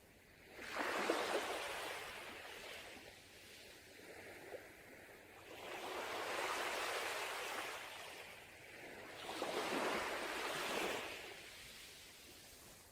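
Sea waves breaking and washing up a beach: three surges of hiss about four seconds apart, each swelling and fading away.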